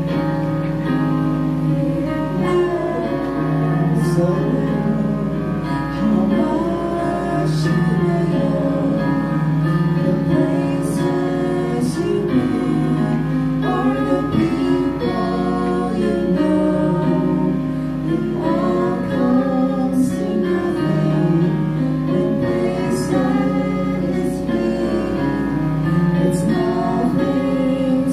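A woman singing a gospel song into a microphone over instrumental accompaniment, amplified through a PA system.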